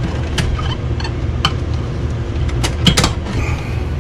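A steady low rumble with a scattered series of light clicks and taps, about six of them, clustered near the end: the handling of electrical wire being pulled through conduit.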